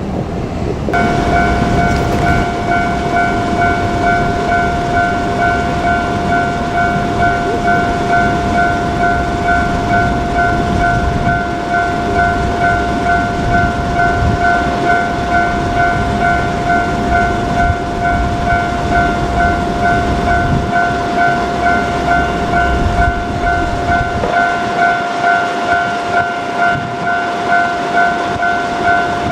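Japanese level-crossing warning bell ringing steadily at about two strokes a second, starting about a second in. Under it is a train's low rumble, which drops away about 24 seconds in.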